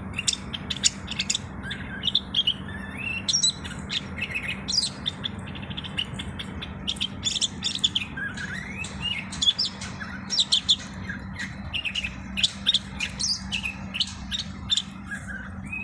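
Common bulbul (Moroccan bulbul) singing: a fast, busy run of sharp chirps mixed with short slurred whistles, over a steady low hum.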